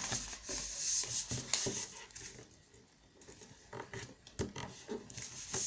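A sheet of printer paper being handled and folded on a tabletop: soft rustling, a near-silent pause about halfway, then a few crisp creasing clicks and more rustling.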